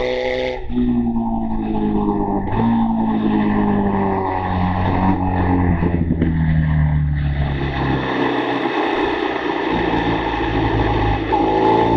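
BMW R 1200 GS boxer twin at track speed, heard from the bike itself with wind rush. The engine note slides down in steps with sudden upward jumps as the bike slows for a corner, then climbs again near the end as it accelerates.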